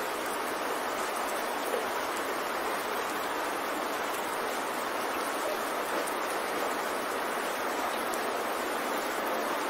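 Steady rushing noise, like running water, with no pitch, rhythm or change: the masking background of a subliminal audio track.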